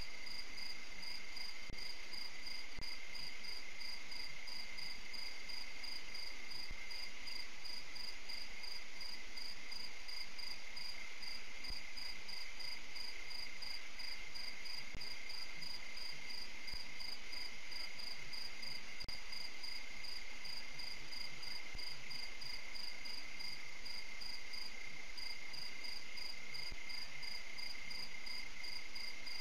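Steady night insect chorus: a high trill pulsing in an even rhythm over a lower, unbroken trill.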